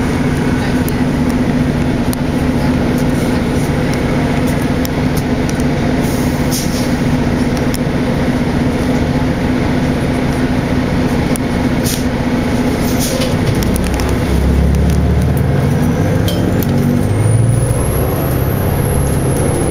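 Cabin noise of a 2003 Orion VII diesel bus under way, with its Detroit Diesel Series 50 engine and Allison transmission running in a steady drone and a few light knocks. About two-thirds of the way through, the engine note changes and then rises in pitch.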